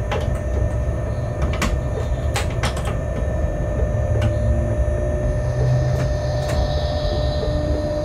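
Locomotive cab noise while running light at low speed: a steady low rumble with a faint steady tone, broken by a scattering of sharp clicks and knocks, most of them in the first three seconds.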